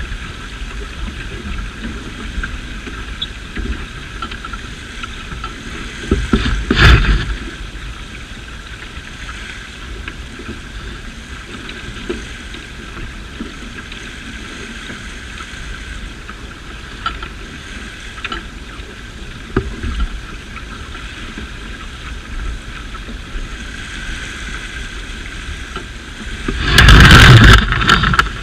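Water rushing and hissing past a sailing yacht's hull, with wind buffeting the microphone in an uneven low rumble. Two loud bursts break through, one about seven seconds in and one near the end.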